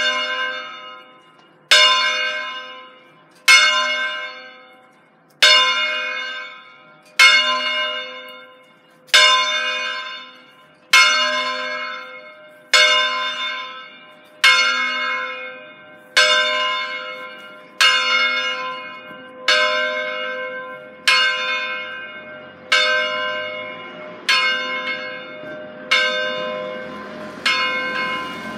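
The fifth bell of a five-bell Ambrosian-system church ring swung in full (distesa), sounding one stroke about every 1.8 seconds, each stroke ringing and dying away before the next. The strokes grow softer towards the end.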